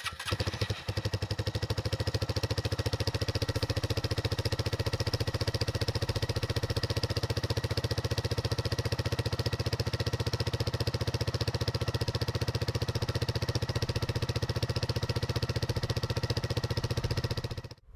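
2019 Honda Grom's single-cylinder 125 cc four-stroke engine catching on a cold start and idling steadily through a cheap aftermarket high-mount exhaust fitted with a baffle. The idle stays even with no revs and cuts off suddenly near the end.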